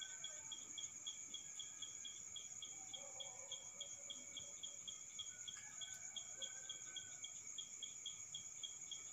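Night insects chirping: a steady high-pitched trill with a second, pulsing chirp repeating about four times a second, faint.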